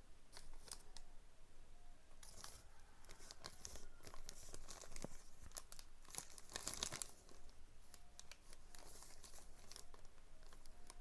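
A wire cutter's packaging being handled and opened by hand: irregular rustling with scattered sharp crackles, busiest about two to four seconds in and again around six to seven seconds.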